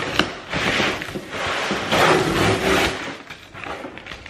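A cardboard shipping box being opened by hand: cardboard flaps and packing tape scraping and tearing in two longer noisy spells, with a few short knocks.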